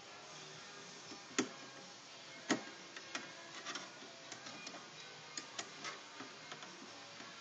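Screwdriver clicking and tapping against terminal screws and the metal end pan while wires are fastened to a switch/outlet block inside a K-9 dog dryer's motor housing: two sharper clicks in the first few seconds, then a string of lighter ticks. Faint music plays underneath.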